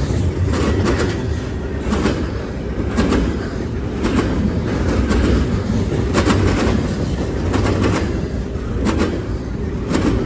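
Double-stack intermodal freight train's container well cars rolling past: a steady low rumble of steel wheels on rail with paired clacks about once a second.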